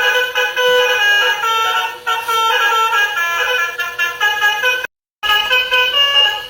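A truck's multi-tone telolet air horn playing a quick tune, its notes changing every fraction of a second, with a brief dropout about five seconds in.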